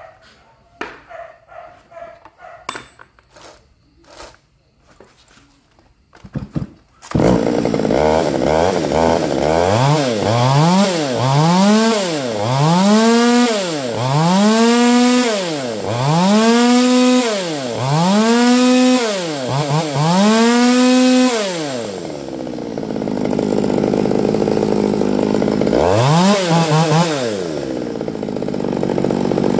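A Stihl MS 200 T two-stroke top-handle chainsaw being test-run after repair. After some clicks of hands handling the bar and chain, the engine starts about seven seconds in. It is revved up and back down about six times, roughly every two seconds, with the chain spinning on the bar. Then it drops to idle, with one more quick rev near the end.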